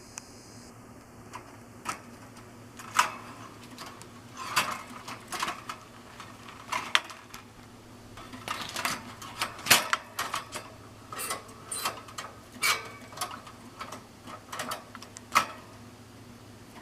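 Irregular sharp clicks and taps of a canary moving about its stainless steel cage, hopping on perches and pecking at its dishes, a dozen or more at uneven intervals, with no song.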